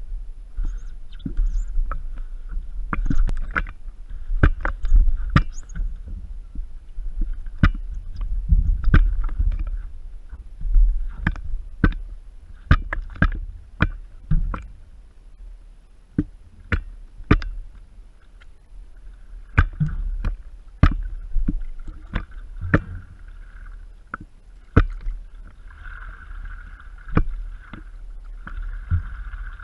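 Stand-up paddleboard on the water, heard from a camera on the board itself: paddle strokes and water lapping against the board, with many sharp, irregular knocks and taps through the board and a steady low rumble.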